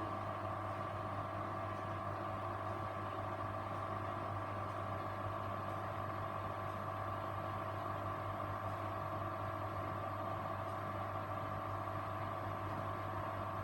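Grundig washing machine running with a steady motor hum: a low tone with a higher steady whine above it, unchanging throughout.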